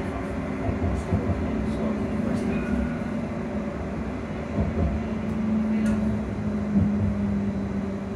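AC traction motors of an electric train whining steadily over the rumble of the ride, heard from inside the passenger saloon.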